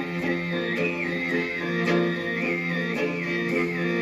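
Mongolian throat singing (khöömei). A steady low drone carries a high overtone melody that wavers above it. A long-necked Mongolian lute is plucked in a steady rhythm alongside, and a morin khuur (horsehead fiddle) is bowed.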